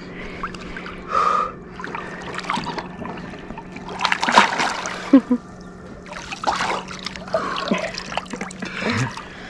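A swimmer plunging into cold river water: a loud splash about four seconds in as he goes under, with sharp breaths and smaller splashes and sloshing as he swims.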